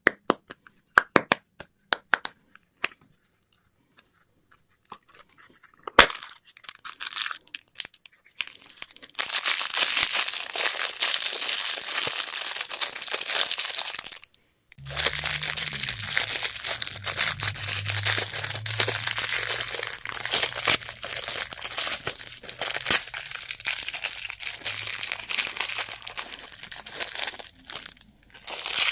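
Candy and toy packaging being unwrapped: a few sharp clicks at first, then long stretches of dense crinkling and tearing of wrapper, with a short break about halfway. A low steady hum runs under the second stretch.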